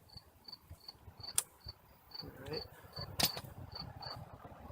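A cricket chirping steadily, about two to three short high chirps a second, with a couple of sharp clicks, the louder one about three seconds in.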